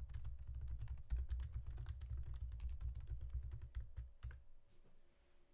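Fast typing on a computer keyboard: a quick run of key clicks that stops about four and a half seconds in.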